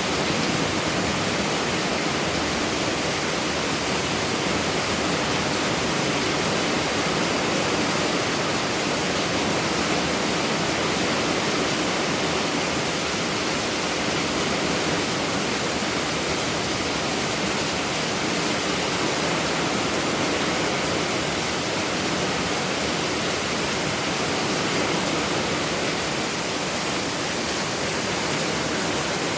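Heavy rain pouring down in a sudden downpour, a steady, even hiss with no let-up.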